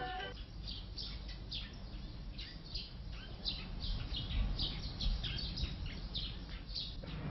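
Small birds chirping: a steady scatter of short, high chirps, each dropping quickly in pitch, over a faint low rumble.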